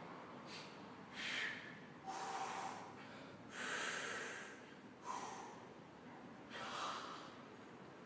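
A weightlifter's forceful breaths, about five in a row roughly a second apart, taken while bracing in the start position before pulling a heavy deadlift.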